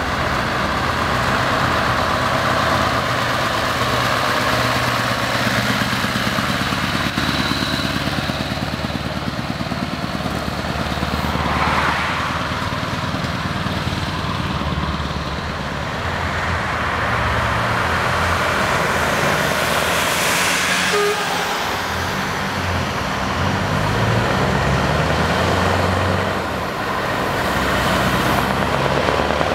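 Scania R500 V8 diesel truck engine running with an open exhaust pipe and pulling away, its revs rising and falling. Twice a brief hiss of noise rises over the engine.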